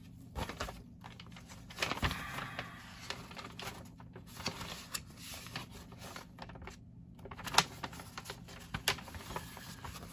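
Scattered light clicks, taps and rustling of small plastic model-kit parts and paper being handled on a workbench, with a sharper click about three quarters of the way through, over a faint steady hum.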